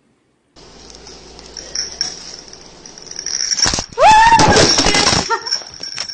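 Loud rustling and scraping of a phone being handled with its microphone covered, from about three and a half to five seconds in, over a faint steady high whine. One short high call that rises and then falls cuts through the rustling about four seconds in.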